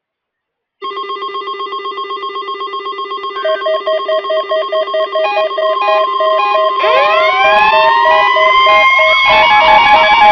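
Several alarm sounds layered together, growing louder: a buzzing pulsed alarm tone starts about a second in, rapid beeping joins, and about seven seconds in a siren winds up, rising in pitch and levelling off.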